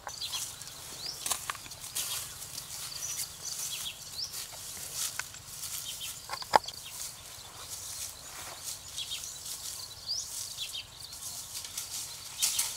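Small birds chirping in short rising calls over woodland ambience, with scattered crunches and rustles of footsteps through dry undergrowth. One sharp snap, the loudest sound, comes about six and a half seconds in.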